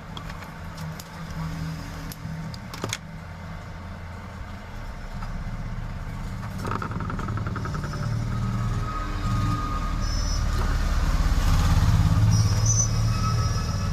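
A motor vehicle's low engine rumble growing louder, with a few light clicks about three seconds in.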